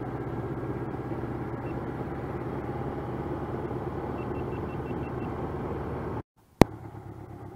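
1985 Honda CB700SC Nighthawk's inline-four engine running steadily, with road and wind noise. A little after six seconds the sound cuts out, a sharp click follows, and the engine comes back quieter.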